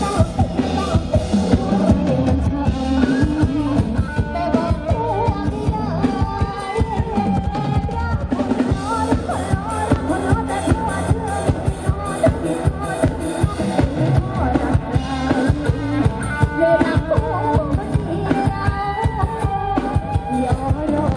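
Live band playing through a Thai rot hae sound truck's speaker stacks: a woman singing into a microphone over drum kit and keyboard, with a steady driving beat.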